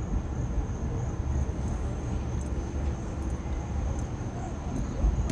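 Steady low rumble of a vehicle and road noise, with a faint constant high whine above it.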